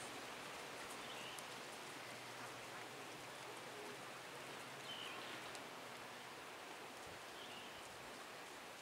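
Faint steady outdoor background hiss, with a few short faint high chirps about a second in, around five seconds and near the end.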